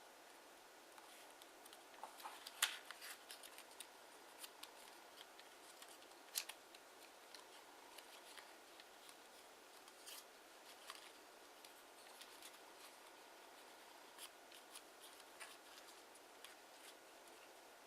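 Kraft origami paper being folded and creased by hand: faint scattered crinkles and crisp little clicks over a quiet hiss, with two sharper snaps, about two and a half and six seconds in.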